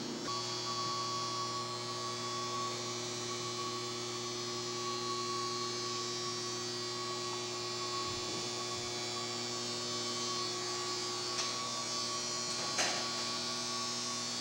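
Steady electrical hum from the power equipment in a battery and rectifier room while the batteries are on charge: a low hum with a faint higher whine over a hiss, and a small click about thirteen seconds in.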